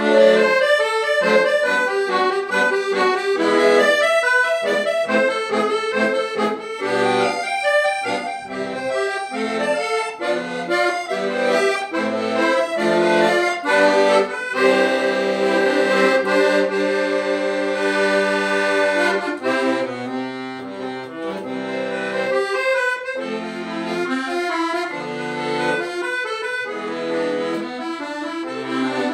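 Solo piano accordion: fast runs of right-hand melody over left-hand bass notes, long held chords about halfway through, then bass notes alternating with chords.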